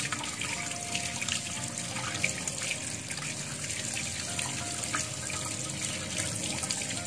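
Kitchen tap running steadily into a stainless steel sink, the stream splashing over raw prawns as they are rinsed by hand.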